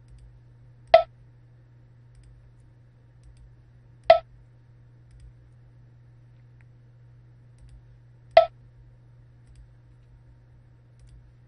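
Computer mouse button clicked three times, a few seconds apart, over a steady low hum.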